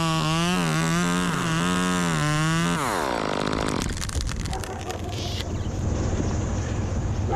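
Gas chainsaw running at full throttle with its pitch wavering under load as it cuts. About three seconds in the throttle is released and the revs fall away to a rough low idle, with scattered clicks and knocks of wood.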